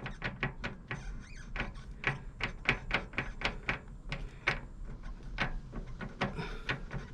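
Loose metal-on-metal clicking from a Yamaha XVS 650 Drag Star's drive shaft as its universal joint and intermediate shaft are rocked back and forth by hand, about three or four irregular clicks a second. The clicking is the sign of play in the drivetrain, which the owner places in the intermediate shaft rather than in the cross.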